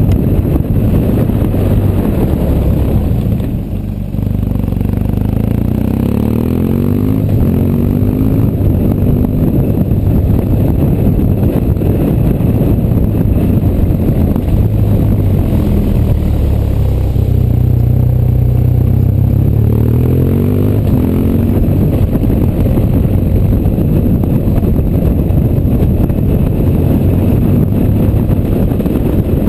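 BMW R1200GS boxer-twin engine running on the move over cobblestones, with the rumble and clatter of tyres on the cobbles. The engine note drops briefly about four seconds in, then rises as it accelerates, and rises again about two-thirds of the way through.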